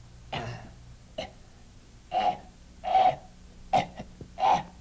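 A hoarse puppet-character voice making a string of short coughs and wheezing grunts, about one a second.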